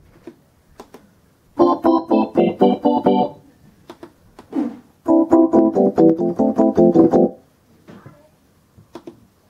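Concertmate-1000 electronic keyboard playing a quick run of notes on its Jazz Organ 1 preset. After a few faint clicks of its panel buttons, it plays a second quick run on the Jazz Organ 2 preset.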